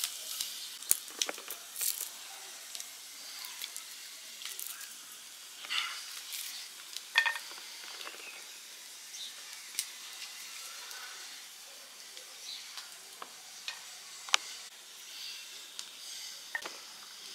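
Dry papery garlic skins crackling and clicking as cloves are peeled by hand, in scattered sharp ticks over a steady faint hiss.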